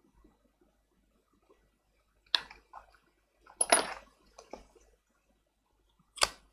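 Small hard tablet parts and hand tools being handled: a few sharp clicks and clacks, with a short clatter near the middle and a last sharp click near the end.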